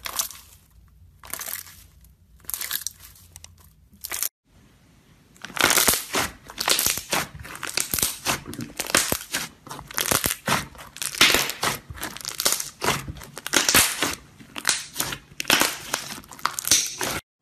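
Hands squishing and kneading slime: a few short crackles as a clear slime is pressed, then, after a brief break, dense rapid crackling and popping as a thick slime is pressed and folded between two hands. It stops suddenly near the end.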